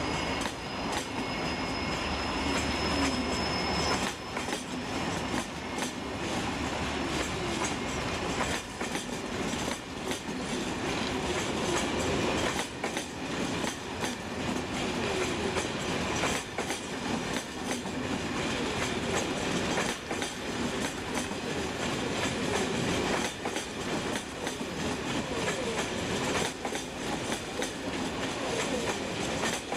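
Train rolling along the track with a steady run of wheel clicks over the rail joints and some wheel squeal. A thin high whine and a low hum cut off about four seconds in.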